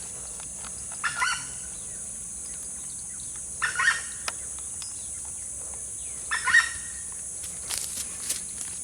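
A bird calling three times in short, harsh bursts, roughly every two and a half seconds, over a steady high-pitched hiss.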